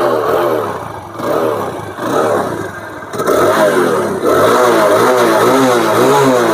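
TVS Apache RTR 180's single-cylinder air-cooled four-stroke engine being revved. It goes in a few short throttle blips, then louder, with rapid rises and falls in pitch from about three seconds in. It is running on fresh 10W-40 fully synthetic oil after an engine flush, and the owner feels it running smoothly.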